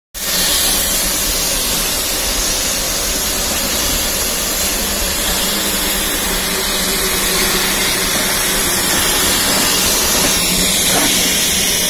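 Narrow-gauge steam locomotive hissing steadily as steam escapes, a loud even rush with no distinct exhaust beats.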